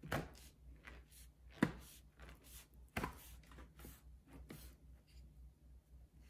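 Large kitchen knife chopping down through rolled phyllo pastry in a metal sheet pan: a series of short, sharp cuts, the loudest about a second and a half in and another strong one at about three seconds.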